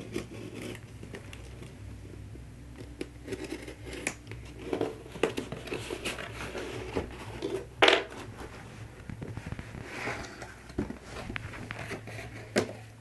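Cardboard shipping box being opened: a craft knife scraping along its packing tape, then the box handled and its lid pulled open, with scraping, rustling and clicks of cardboard. One loud sharp sound comes about eight seconds in.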